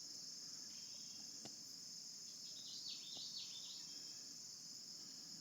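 Faint, steady high-pitched insect chorus trilling without a break, with a short run of quick falling bird chirps about halfway through.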